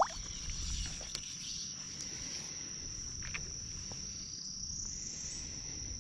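Insects buzzing in a steady, high-pitched drone, the riverside summer chorus. A brief rising chirp comes right at the start.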